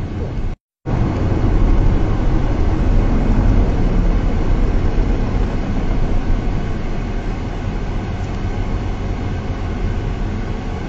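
Steady road and engine noise inside a car's cabin at highway speed, a dense low rumble. It drops out to silence for a split second about half a second in, then resumes.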